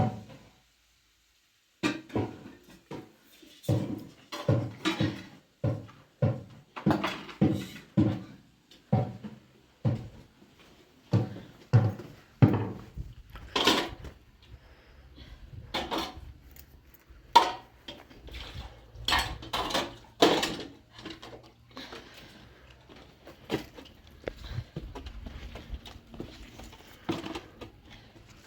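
Kitchenware being handled: a run of dull knocks and clatters, about two a second, then scattered sharper clinks.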